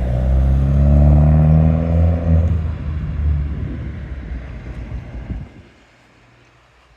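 A motor vehicle's engine pulling away, its pitch rising over the first couple of seconds, then fading out after about five seconds.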